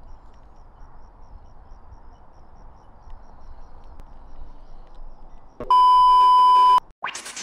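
Quiet outdoor ambience with a low hiss, then, about five and a half seconds in, a loud steady 1 kHz test-tone beep that lasts about a second, as with TV colour bars. A rising electronic sweep starts right at the end.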